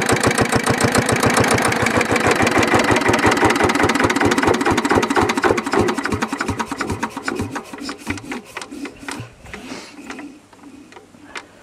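Petter PAZ1 single-cylinder diesel engine running with a fast, even beat, then shut down by holding its stop rod over. From about six seconds in the beats slow and fade as it coasts to a stop, with a last thump near the end.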